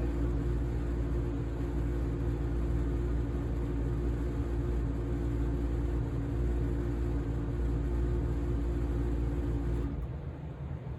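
1994 Lennox Pulse 21 gas furnace running on pulse combustion, a steady low droning rumble from gas-air charges spark-fired many times a second in its cast-iron chamber. About ten seconds in the combustion stops abruptly as the furnace is shut off, leaving a quieter steady hum.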